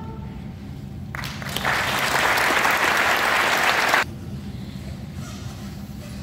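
Audience applauding, building from about a second in and cutting off suddenly about four seconds in, leaving a low hall background.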